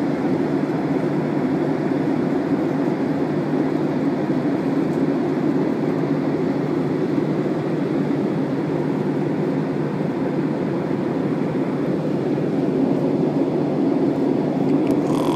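Steady drone of an airliner cabin in flight: engine and airflow noise, even and unbroken.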